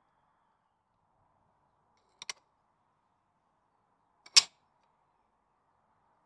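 A light double click about two seconds in, then a single sharp, loud metal clack a little past four seconds as an angled metal jaw cover is set down onto a bench vise's jaw.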